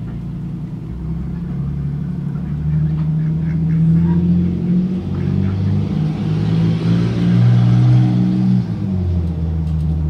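A motor vehicle going past, its engine a low hum that shifts in pitch, growing louder to a peak about eight seconds in and dropping away near the end.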